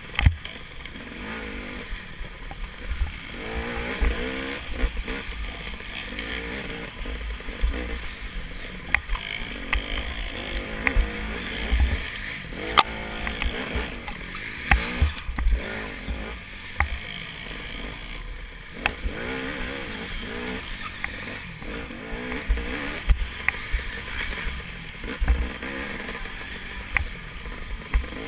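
Dirt bike engine revving up and down as it is ridden hard over a rough trail, with frequent thumps and rattles as the bike hits bumps.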